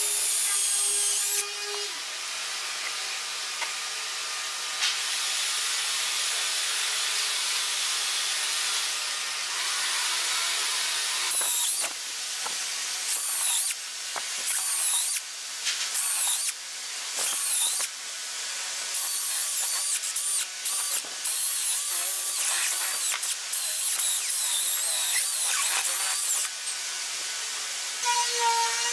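Makita 18V cordless drill boring holes into a wooden block: a motor whine at first, then a long steady run as the bit cuts through the wood. Past the middle the drill runs in many short bursts with the trigger let off between them.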